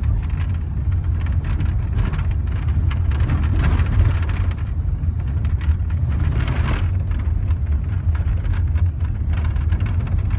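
Passenger van driving, heard from inside the cabin: a steady low rumble of engine and tyres with frequent small clicks and rattles. The hiss swells briefly twice, about four and six and a half seconds in.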